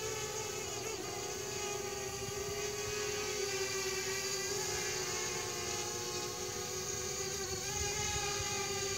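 Parrot Bebop 2 quadcopter in flight, its four brushless motors and propellers giving a steady whine that dips briefly in pitch about a second in. The motors, rebuilt after a crash, are running normally.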